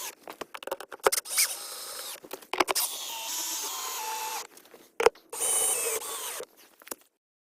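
Close handling noises from vent parts being fitted by hand: sharp clicks and knocks between stretches of squeaky, scraping rubbing. The sound stops abruptly near the end.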